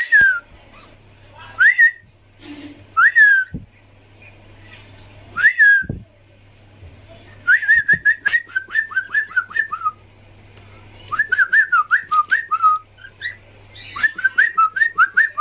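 Pet parrot whistling: a few single clear whistles that rise and fall, a second or two apart, then quick runs of short chirping whistle notes.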